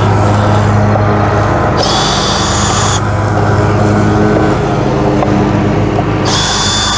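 Lawn mower engine running steadily, with two short high-pitched whines that start and stop abruptly, about two seconds in and again near the end.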